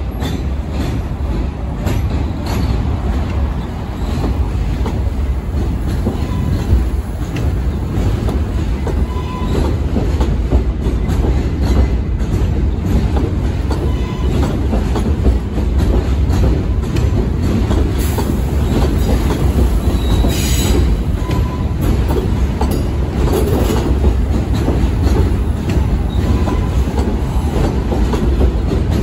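New York City Subway R143 train passing close by on an elevated steel structure: a steady rumble of wheels on rails, with rail-joint clicking and a few brief, faint wheel squeals.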